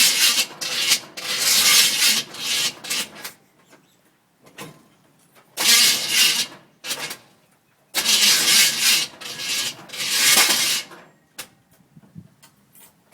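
Starter cranking the 350 small-block V8 in three tries: about three seconds, a short one about six seconds in, then about three seconds more, with quiet between. The engine does not start.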